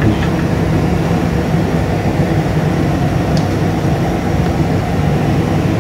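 Steady low machine hum with a rumble under it, running evenly throughout.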